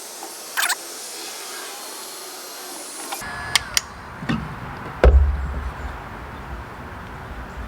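Electric heat gun blowing a steady hiss of hot air onto a fitting to soften it for a tight seal, stopping about three seconds in. Then two sharp clicks and a loud thump about five seconds in as parts and tools are handled.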